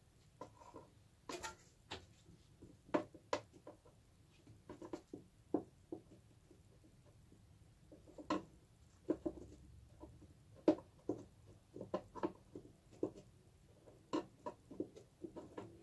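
Hands fitting a flap door into a VW Type 3 fresh air box: an irregular string of light clicks, taps and scrapes of plastic parts as it is worked into its guide holes.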